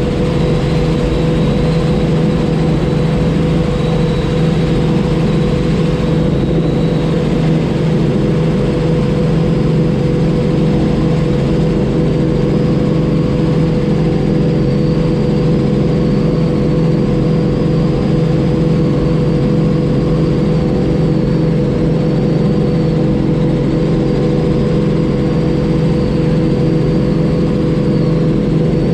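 Robinson R44 helicopter in flight: a steady, loud drone of its six-cylinder Lycoming piston engine and rotors, with a faint high whine that wavers slightly.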